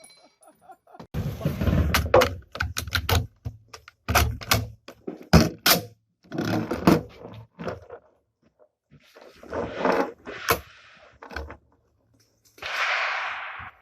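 M1 Garand rifle in .30-06 firing several shots, each a sharp report with an echoing tail.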